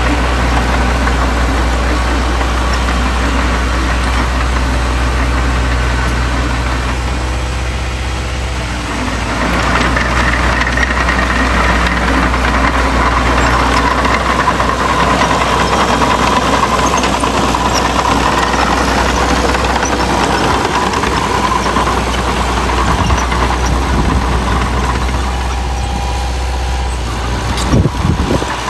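Diesel engine of heavy earthmoving equipment running steadily. A higher whine joins about ten seconds in and fades out some ten seconds later.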